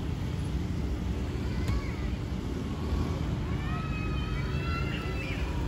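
City street ambience: a steady low rumble of traffic, with people's voices in the background over the second half.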